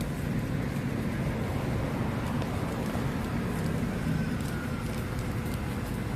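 Steady road traffic noise: a continuous low rumble of passing vehicles with an even hiss above it.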